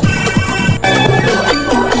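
Sped-up upbeat dance song with a steady beat, playing without speech; a brief break in the beat about a second in.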